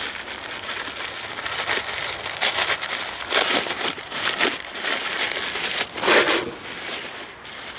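Shipping wrapping around a mailed plant being pulled open and handled, crinkling and rustling in uneven bursts.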